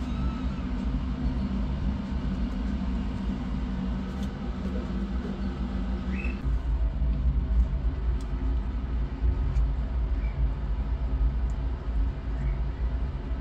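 A steady low rumble, with faint short high kitten mews, one about six seconds in and fainter ones near the end.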